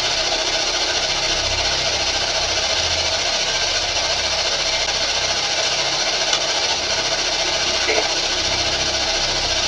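Steady electronic static hiss that runs without a break at an even level.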